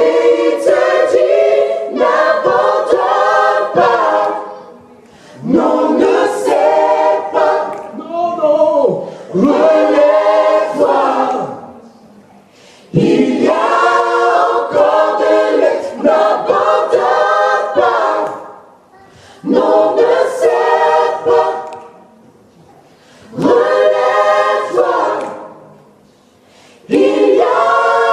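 A vocal group sings a French gospel worship song a cappella, in phrases of a few seconds with short breaks between them.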